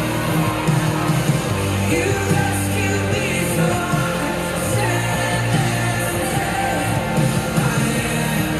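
Worship music: a full band playing with singing voices over it.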